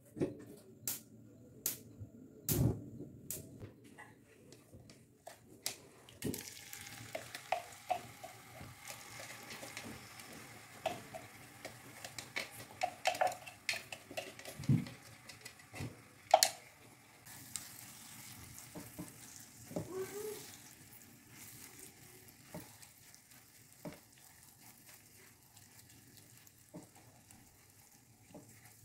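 Chopped red chili mixture frying in hot oil in a nonstick pan: a steady sizzle that starts about six seconds in, with a spatula scraping and knocking against the pan as it is stirred. A few sharp taps come before the sizzling starts.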